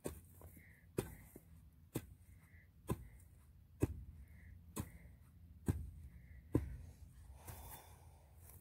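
Garden hoe chopping into the soil, about eight sharp strikes at a steady pace of roughly one a second.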